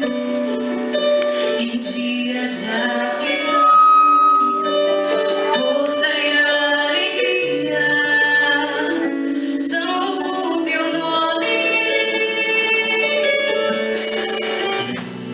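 A worship song: a woman singing sustained melodic lines over instrumental accompaniment.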